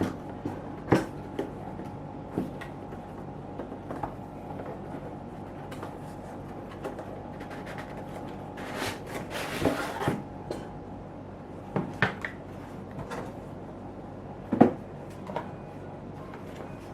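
Scattered clicks and knocks of a laptop and its box being handled, with a rustle lasting about a second and a half near the middle and the loudest knock a little before the end. A faint steady hum runs underneath.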